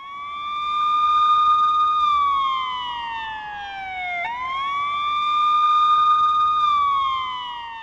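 Emergency-vehicle siren sound effect wailing: the pitch rises, holds high for about two seconds, then slides down, twice over.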